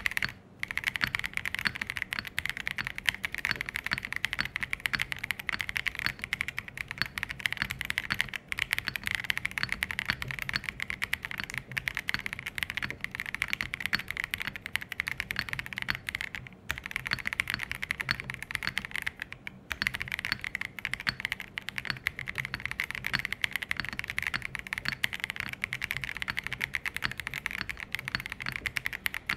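MKC75 75% aluminium-cased custom mechanical keyboard being typed on continuously in a sound test: a dense stream of keystroke clacks with a few brief pauses.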